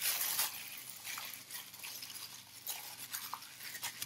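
Plastic-gloved hands kneading chicken thighs through a thick, wet marinade in a glass bowl: irregular squishing and rustling, with a few soft clinks against the glass, loudest at the start.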